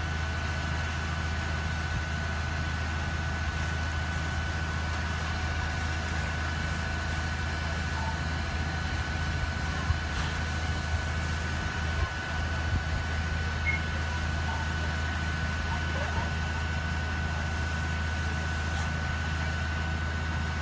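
Fire engine's diesel engine running steadily with a low hum, and a steady high-pitched whine on top of it.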